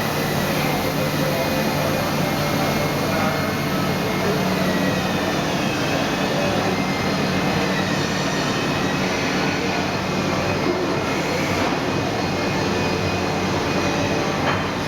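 Mikron HSM 600 U high-speed milling machine running, a steady mechanical hum with several held tones over it.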